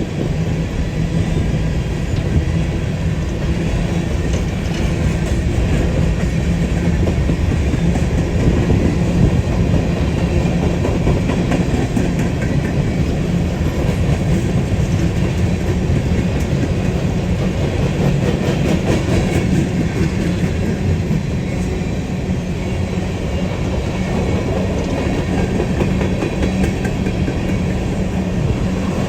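Freight train rolling steadily, its wheels clacking over the rails over a constant low drone.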